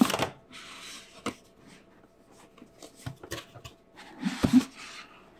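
Handling of a rigid cardboard presentation box as its lid is worked open: a sharp scrape and rustle, softer sliding, scattered taps and clicks, and a heavier knock about four and a half seconds in.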